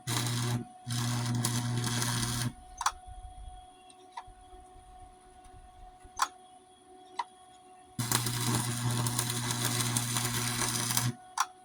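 Electric arc welder welding a steel lawnmower deck: crackling buzz over a steady low hum, in two short runs over the first two and a half seconds and a longer run of about three seconds near the end, with a few sharp clicks between. The welder is set burning hot for the deck.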